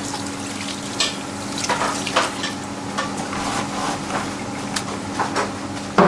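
Hands washed under a running tap at a stainless-steel sink, then paper towels pulled from a dispenser and rustled as hands are dried, with scattered short rustles and clatters. Underneath is a steady sizzling hiss and a low hum of commercial kitchen equipment, with a sharper knock at the very end.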